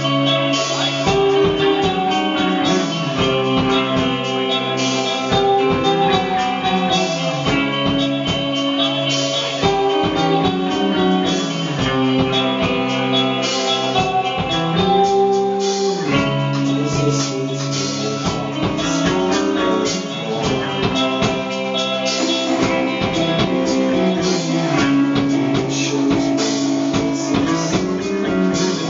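Live rock band playing: electric guitars over a drum kit, sustained chords with a regular drum beat.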